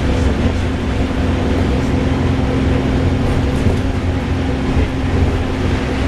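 Wright Gemini 2 VDL DB300 double-decker bus running: a steady engine drone with a constant whirring tone held over it.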